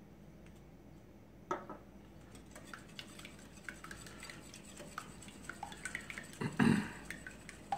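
Wire whisk beating eggs in a glass mixing bowl, its wires clicking and tapping rapidly against the glass. A single knock comes about a second and a half in, and a louder thump near the end.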